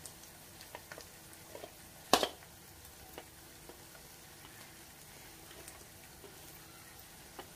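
Spice masala of ginger-garlic paste, cumin, coriander and chilli powder sizzling in hot oil in a pan, with small scattered crackles. One sharp knock rings out about two seconds in.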